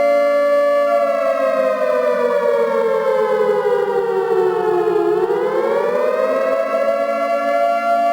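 Civil-defence siren sounding what the uploader calls a nuclear raid warning. A steady tone sinks slowly in pitch for about four seconds, then climbs back more quickly and holds.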